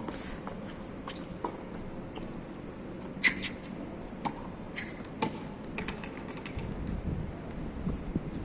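Tennis rally: ball struck by rackets and bouncing on the court, a series of sharp pops about a second apart, the loudest a little past three seconds in. Wind rumbles on the microphone near the end.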